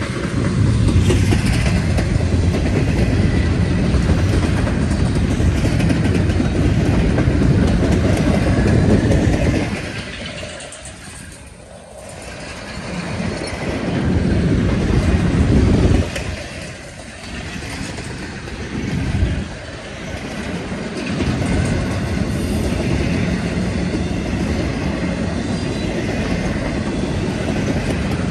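Double-stack intermodal freight train's well cars rolling past: a steady, loud rumble and clatter of steel wheels on the rails, easing off briefly twice in the middle before building again.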